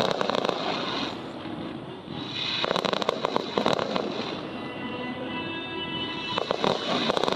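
Fireworks bursting and crackling in three clusters of rapid pops, roughly three seconds apart.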